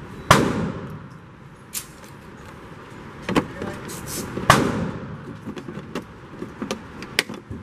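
Two gunshots from neighbouring lanes of an indoor shooting range, about four seconds apart, each echoing with a long tail. Lighter clicks and knocks of handling come in between.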